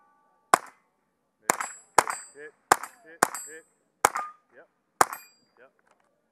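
A string of seven gunshots fired at steel targets, about half a second to a second apart, several followed by the short metallic ring of a struck steel plate.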